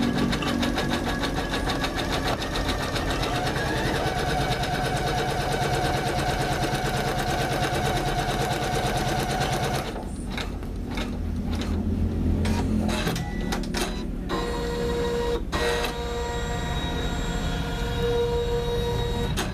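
Janome MC500E computerized embroidery machine stitching with a fast, even needle rhythm. About halfway through this breaks into slower, uneven strokes over a steady whine.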